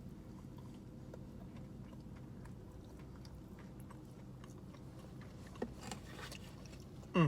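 Quiet chewing and mouth sounds over a steady low hum, with a short sound falling in pitch near the end.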